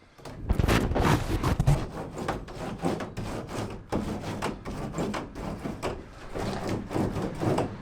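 Butyl sound-deadening mat being handled and worked onto a thin steel van panel: dense, irregular rubbing, scraping and crackling that starts about half a second in.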